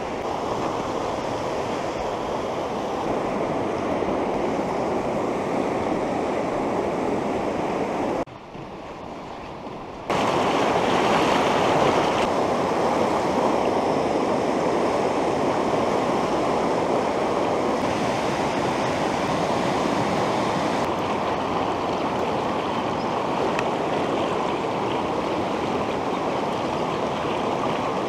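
Fast river water rushing over rocks in whitewater rapids, a steady rush. It drops away for about two seconds about eight seconds in, then comes back a little louder.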